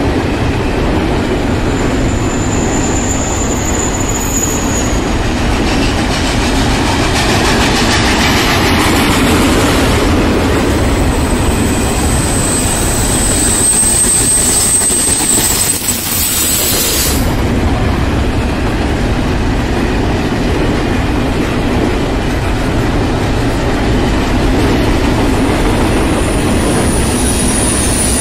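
Loaded double-stack intermodal container cars of a BNSF freight train rolling past with a steady rumble and clatter of wheels over rail joints. High-pitched steel wheel squeal rings out three times as the cars take the curve: briefly near the start, for several seconds in the middle, and again near the end.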